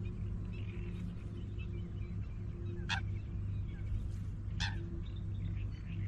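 Birds chirping and calling, with two short, sharp calls sweeping down in pitch near the middle, over a steady low drone.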